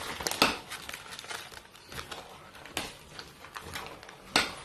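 A metal spoon stirring sugar into chopped vegetables in a large stainless steel pot: soft scraping with a few sharp clinks of spoon on pot, the loudest near the end.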